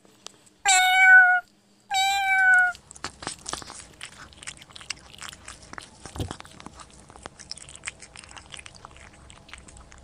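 A cat meows loudly twice, each meow under a second long and sagging slightly in pitch. It then crunches and chews on dry biscuits in a fast run of small crackly clicks.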